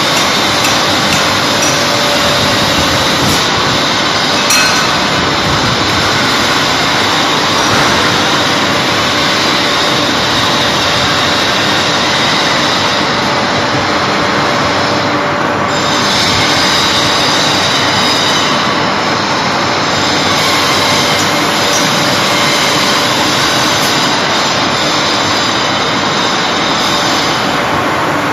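Quartz-slab production line machinery running: loud, steady mechanical noise from the roller conveyors and plant, with a few faint steady hum tones.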